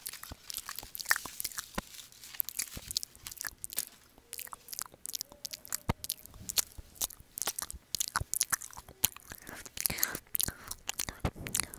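Close-miked crackling and crinkling of aluminium foil wraps being unrolled from curled hair, a dense run of sharp little clicks, with hair rustling as the curls are shaken loose.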